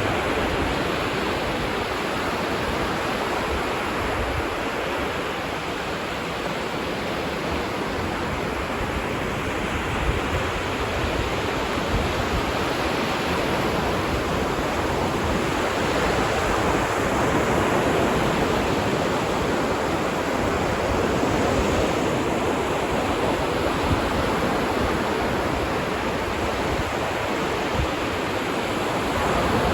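Ocean surf washing onto a beach: a continuous rush of water that slowly swells and eases, stronger around the middle of the stretch.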